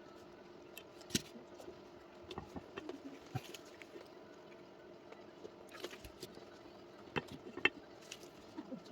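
A steady low hum with scattered sharp clicks and knocks, the loudest about a second in and near the end.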